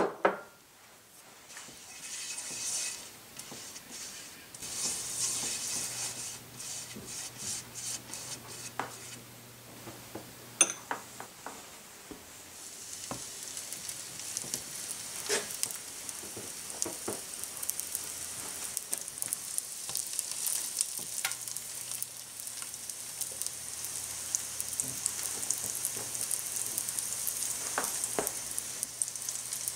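Flatbread dough frying in oil in a pan: a sizzle that comes in uneven spells for the first dozen seconds, then runs steadily and a little louder from about halfway. Now and then a utensil taps or knocks against the pan, with a sharp click at the very start.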